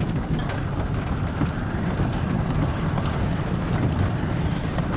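Steady rain with wind, with scattered individual drops ticking against a nearby surface.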